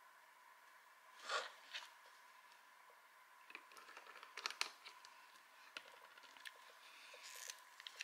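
Faint handling sounds from setting down a plastic nail-tip display stick and nail tools: a brief rustle about a second in, then a run of small clicks, taps and scrapes.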